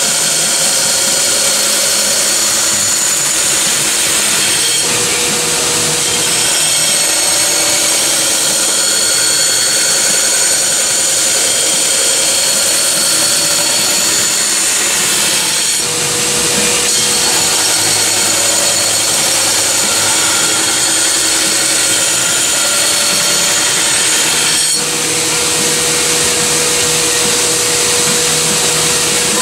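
Belt grinder running steadily with a high abrasive hiss, as the knife blade is ground on the sanding belt. It eases off briefly about three times.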